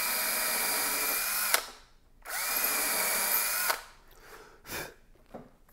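Power drill with a small bit boring a pilot hole into the end grain of a wooden chair post: a steady whine that stops about one and a half seconds in, then a second run of about a second and a half that rises in pitch as it starts. A few faint short sounds follow near the end.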